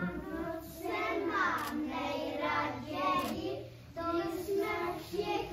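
A group of young children singing together in unison, with a short break about four seconds in before they carry on.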